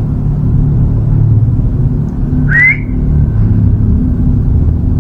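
Steady low rumble, with one short rising squeak about halfway through.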